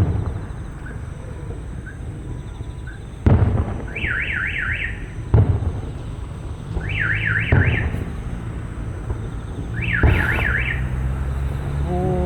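Aerial fireworks bursting, four sharp booms with rumbling tails over a few seconds. Between them come three short spells of a fast up-and-down warbling high whine, each lasting about a second.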